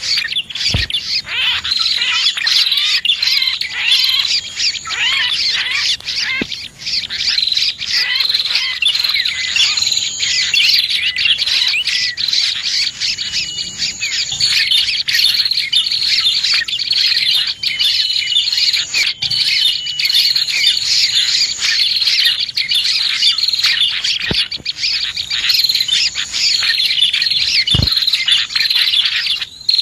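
Dense, continuous chirping and twittering of small birds, prinias (prenjak) among them, as used for luring birds: rapid overlapping high calls and trills with no break.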